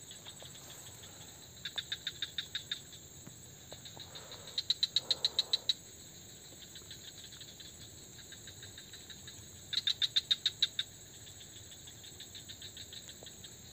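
Swamp insects calling: a cricket-like chirp of rapid high pulses, about ten a second, comes three times for about a second each over a steady high insect drone.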